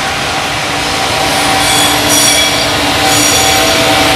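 JR Freight EF210 electric locomotive hauling a container freight train past at close range: a loud steady rumble of wheels on rail with a steady hum under it. A high-pitched squeal from the wheels comes in twice, starting about a second in and again about three seconds in.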